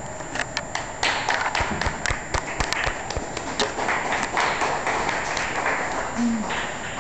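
Irregular taps and knocks, footsteps on the stage, over a murmur of voices.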